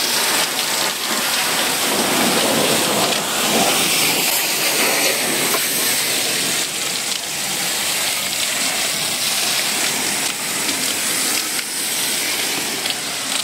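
Car-wash foam sprayer spraying foam onto a car's body: a steady hiss of spray striking the paint and glass.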